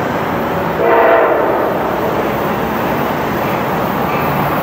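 Approaching Amtrak diesel passenger train, with a short horn blast about a second in over a steady rumble from the train.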